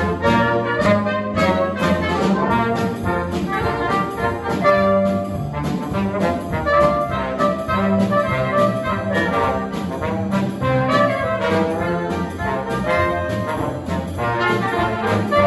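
Dixieland jazz band playing live, with trumpet and trombone carrying the tune over a steady beat.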